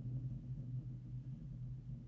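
A low, steady engine-like hum that slowly fades away.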